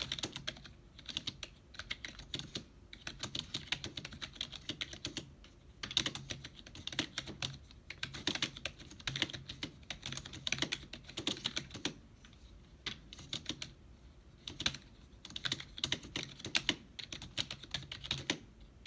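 Fast typing on a Rii gaming keyboard: rapid runs of key clicks with short pauses between them.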